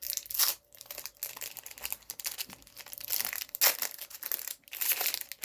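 Pokémon card packaging and cards being handled, crinkling and rustling in irregular bursts, loudest just after the start and again about three and a half seconds in.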